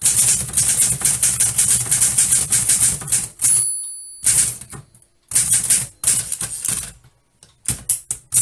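Typewriter being typed on: rapid runs of key strikes, then the margin bell rings once about three and a half seconds in. Typing resumes in shorter bursts with pauses between them, ending in a few separate keystrokes.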